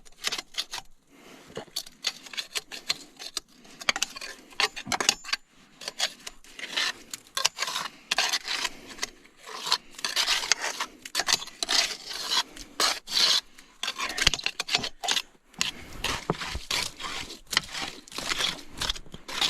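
Irregular scraping and rubbing strokes: mud being scraped out of a machine's hydraulic drive motors so it cannot freeze and jam them.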